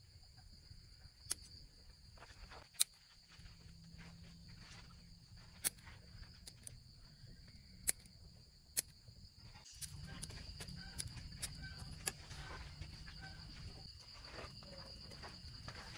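Scissors snipping through toasted bread slices on a wooden chopping block, a sharp snip every second or two. Behind it runs a steady high insect chirr, like crickets at night.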